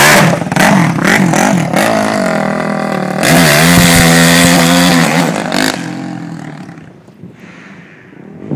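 Four-stroke motocross bike at full throttle, its engine climbing in pitch again and again as it revs up through the gears and pulls away. It holds a loud, steady high rev for a couple of seconds, then fades into the distance over the last few seconds.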